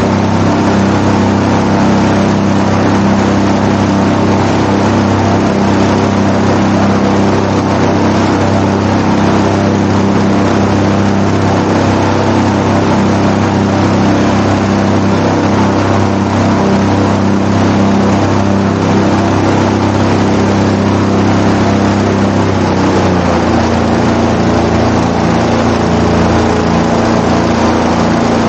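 Airboat's engine and air propeller running steadily at speed; about 23 seconds in the engine note steps down to a lower pitch as the revs are eased off.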